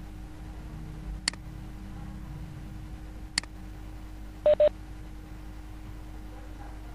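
Two mouse clicks about two seconds apart as a video-call microphone is unmuted, then a quick double electronic beep from the computer, the loudest sound. A steady low hum runs underneath.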